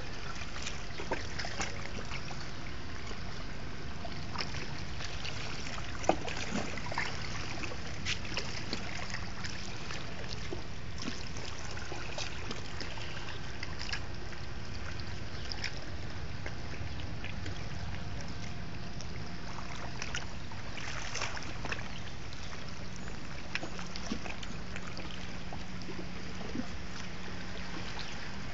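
Sea washing over a beach of rounded pebbles: a steady rush of water with many small clicks of stones knocking together. A faint steady hum comes in about two-thirds of the way through.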